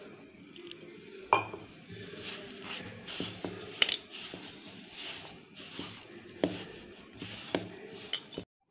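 Hands kneading crumbly flour dough in a stainless steel mixing bowl: a soft, steady rubbing and squishing, broken about four times by sharp clinks of the steel bowl being knocked as it is worked.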